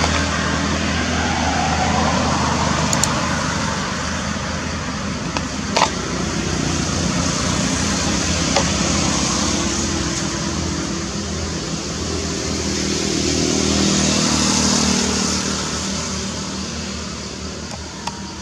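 Road traffic passing: vehicle engines swelling and fading one after another, with a single sharp click about six seconds in.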